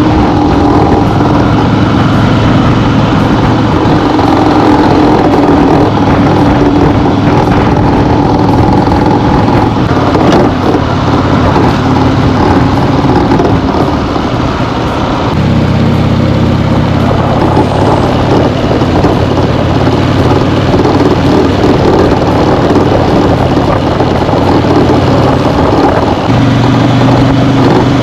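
2008 Harley-Davidson Fat Bob's Twin Cam 96 V-twin engine running loudly and steadily, its tone deepening about halfway through and again near the end. The owner suspects worn motor mounts behind the bike's heavy vibration and rattling.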